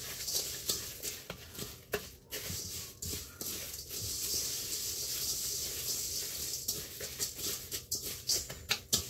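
Dry granola mix of oats, Rice Krispies and dried cranberries stirred with a spatula in a stainless steel mixing bowl: a steady rustling scrape, with scattered sharp clicks of the spatula against the bowl.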